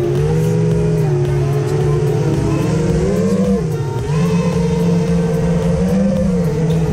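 Music track with held bass notes that step up and down in pitch over a steady beat.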